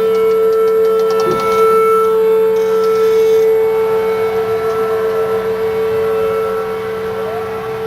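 Outdoor tornado warning sirens, an old Federal Signal Thunderbolt among them, sounding a steady alert tone. A fainter pitch slides slowly down through the middle, and a brief rising slide comes near the end.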